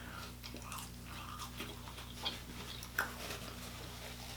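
Close-miked eating of chicken wings: faint scattered wet mouth clicks while chewing, with two sharper clicks about two and three seconds in, over a steady low hum.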